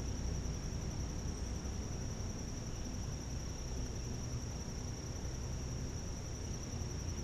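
Insects trilling in one steady, high, unbroken tone over a low, even background hiss.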